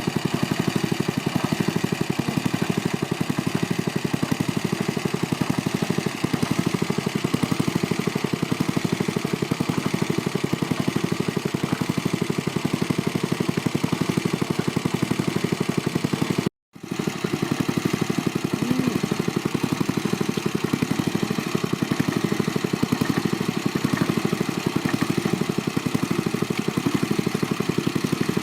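A small engine running steadily at a constant speed with a fast, even pulse. It cuts out abruptly for a fraction of a second about two-thirds of the way through, then carries on unchanged.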